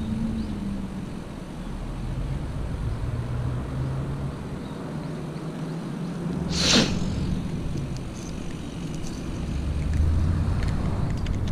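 Small spinning reel being cranked to retrieve a vibration lure: a low, uneven whir over a steady outdoor rumble, with one short hiss about two-thirds of the way through.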